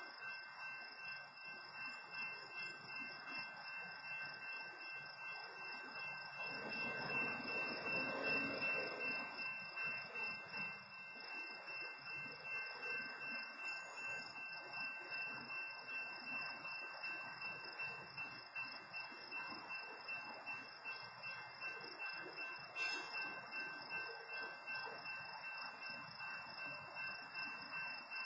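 Night insects, likely crickets, trilling steadily in several high tones. A low rumble swells about seven seconds in and fades by eleven, and a short click comes near the end.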